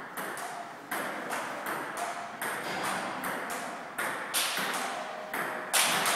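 A run of sharp taps or knocks, roughly one every half second to second, each ringing briefly before fading.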